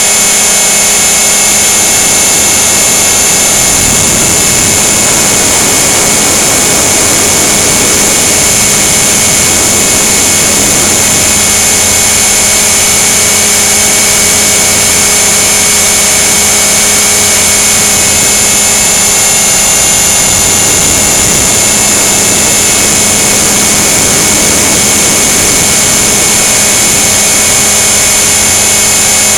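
Align T-Rex 500 electric RC helicopter in flight, heard through its onboard camera: a loud, steady high motor and gear whine over rotor and wind noise, with small shifts in pitch.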